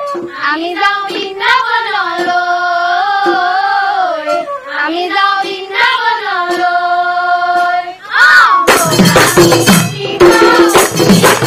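Female chorus singing a dihanam devotional melody in unison, with a few light claps or taps. About three-quarters of the way through, barrel drums and jingling percussion come in loudly.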